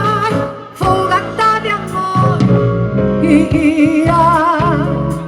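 Ballad music with no words sung; from about three seconds in a long melody note is held with a wide vibrato.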